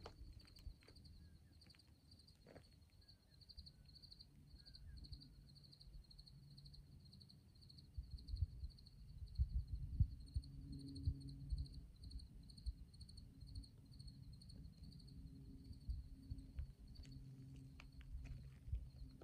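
A cricket chirping steadily in short, evenly spaced high pulses, about two to three a second. Under it there is low rumbling with scattered thumps and a faint low hum, louder from about eight seconds in.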